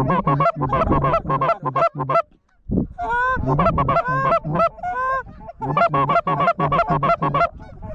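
Goose honks and clucks in quick, rhythmic runs of short calls, with a brief gap about two and a half seconds in.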